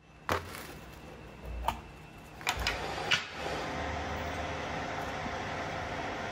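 A few sharp knocks or clicks, then a steady machine rumble with a low hum that starts about three seconds in.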